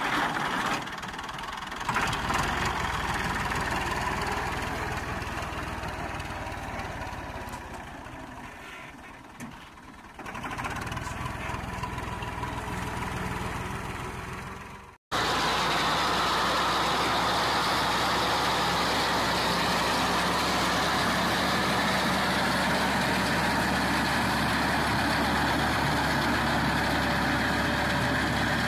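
Massey Ferguson MF 260 tractor's turbocharged diesel engine running steadily under load while it pushes a wheat reaper through the crop. It fades away over the first several seconds and comes back. After a sudden break about halfway through, it runs loud and even.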